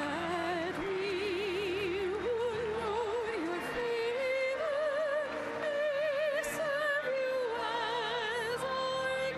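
A classically trained solo voice singing slow, held notes with a wide vibrato, climbing gradually in pitch, over a steady sustained accompaniment.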